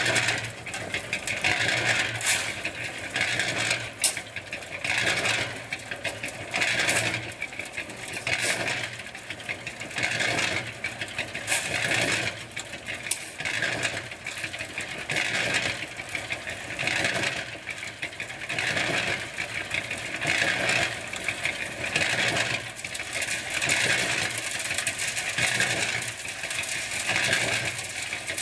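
Small cement mixer turning a load of gravel, the stones rattling and clattering around inside the steel drum in a repeating swell, with a few sharper clinks along the way.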